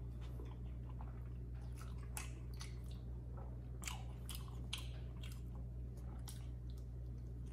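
A person chewing a mouthful of McDonald's Prosperity burger: irregular wet chewing and mouth smacks, with a few sharper smacks around the middle.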